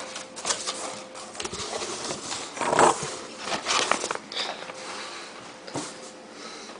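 Cardboard box and packaging being opened and handled: irregular rustling and scraping with small knocks, loudest about three seconds in, then quieter near the end.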